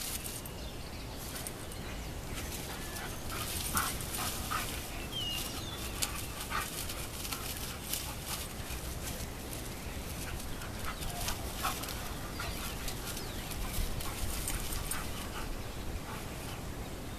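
Two dogs at play, one of them a pit bull, with a few short, scattered whimpers and yips over a steady low rumble.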